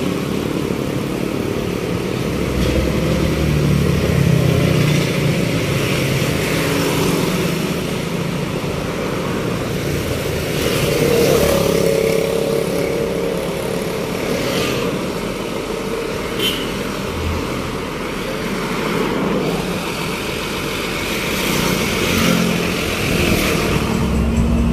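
Roadside traffic: bus and motorbike engines running and passing on a street, a steady traffic noise with swells as vehicles go by.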